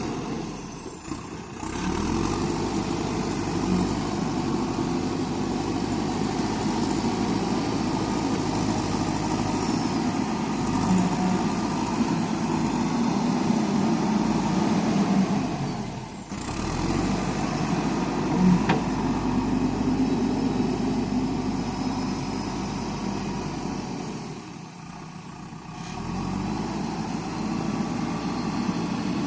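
JCB backhoe loader's diesel engine running steadily, dropping away briefly three times.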